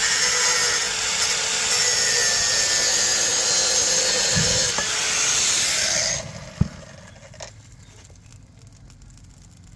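Kumwell exothermic welding charge burning with a loud, steady fizzing hiss for about six seconds as it fuses a ground wire to a copper ground rod. The hiss then drops away, with one sharp click shortly after.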